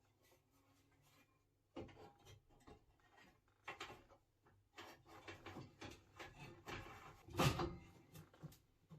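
Irregular knocks, taps and clatter of things being handled, starting about two seconds in, with the loudest knock about seven and a half seconds in.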